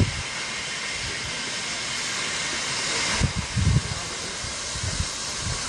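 Train running away into the distance: a steady rushing, hissing noise. Irregular low thumps come in from about three seconds in.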